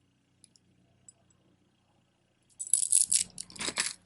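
Beaded jewelry rattling and clinking together as strands are handled, a few faint clicks at first, then a loud dense clatter over the last second and a half.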